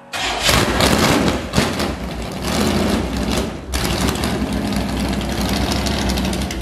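Carbureted 355 small-block Chevy V8 through open headers firing up and running loud and uneven, with a brief dip about halfway through, then falling away at the end. It runs too rich: the engine has been flooding with fuel.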